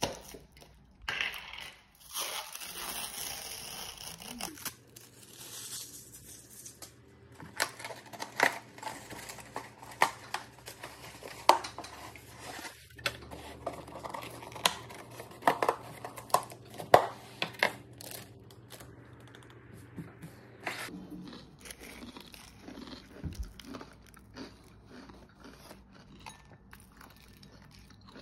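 Takeout food containers being opened and handled: a plastic bowl lid, molded-pulp clamshell boxes and sandwich wrapping paper rustling and crinkling. A steady rustle fills the first few seconds, and sharp clicks and crackles come thickly between about 8 and 18 seconds in.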